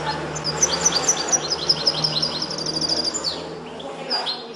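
European goldfinch trained in the limpio song style, singing a fast run of short, high notes that each slide downward. It breaks off about three seconds in and starts another phrase near the end.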